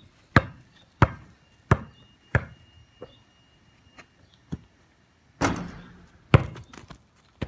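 Basketball bouncing as it is dribbled: four strong, even bounces about two-thirds of a second apart, then a few faint taps. About six seconds in comes one loud impact, followed by quicker, smaller bounces as the ball settles.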